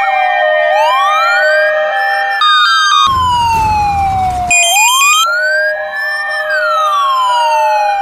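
Ambulance siren sound effect: a slow wail that rises and falls twice, layered with a steady alternating two-note tone and, near the middle, short runs of high stepped electronic tones.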